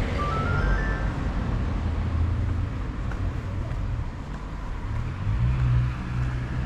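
A car's engine running close by, a steady low hum that swells a little about five seconds in.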